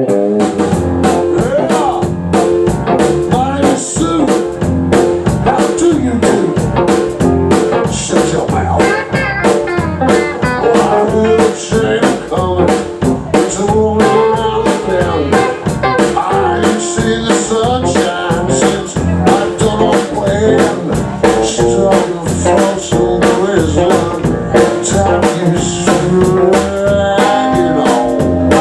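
Live band playing an instrumental blues passage: guitar over bass and a drum kit with a steady beat.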